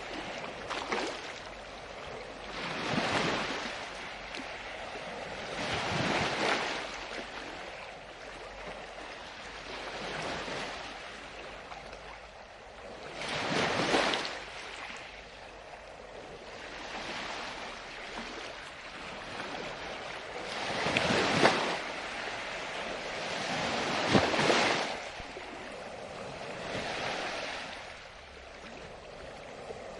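Ocean waves breaking and washing in, one surge about every three to four seconds over a steady wash of water.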